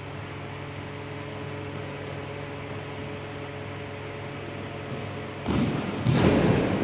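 Steady mechanical hum with a few held tones, then about five and a half seconds in two loud bursts of rough, rumbling noise, typical of a phone's microphone being handled as the camera is moved.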